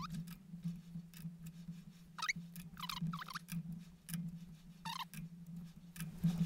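Chuck key working the jaw screws of a lathe's four-jaw chuck during dial-indicator centring: light metallic clicks and a few short high squeaks as one jaw is loosened and the opposite one tightened. A steady low hum runs underneath.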